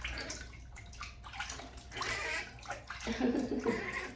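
Water splashing as a hand scoops it from a plastic bucket and washes it over a baby monkey, in several separate splashes.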